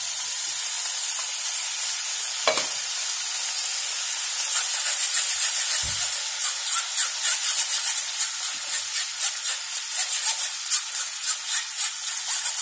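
Butter sizzling in a hot frying pan as strained amaranthus leaf purée drips into it through a steel mesh sieve. From about halfway, a fast run of short crackles joins the sizzle, and a dull knock sounds about six seconds in.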